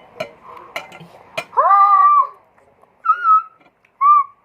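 An animal calling loudly three times in high, pitched cries: a long one, then two shorter ones, after a few sharp clicks.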